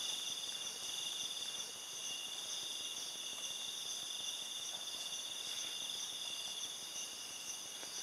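A chorus of night insects, chiefly crickets, trilling steadily and high-pitched without a break.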